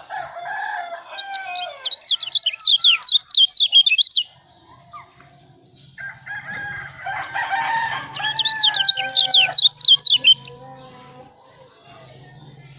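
Kecial lombok, a small white-eye songbird, singing two fast chattering phrases of high sweeping notes. A rooster crows twice beneath it in the background.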